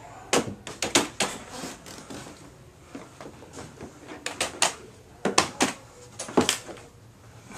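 Padded costume hoof gloves banging clumsily on a computer keyboard and desk: irregular clattering knocks, some in quick runs, with the hardest hits about a second in and again around five to six and a half seconds in.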